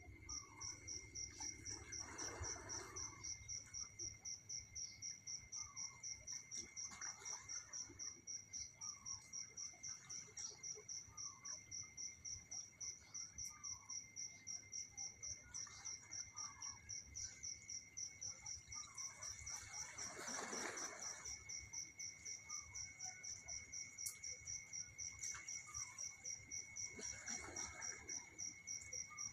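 Insect chirping in a steady, even rhythm of about three to four high chirps a second, over a steady thin whine, with a few soft whooshes of noise now and then.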